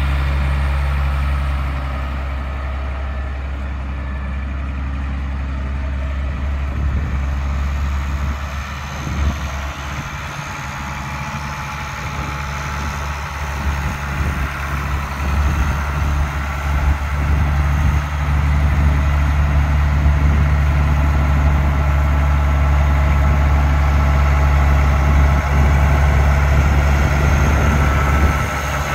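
International Harvester 1086 tractor's turbocharged six-cylinder diesel running steadily at low speed as the tractor drives about. It fades somewhat in the middle as the tractor moves away, then grows louder again as it comes back toward the microphone.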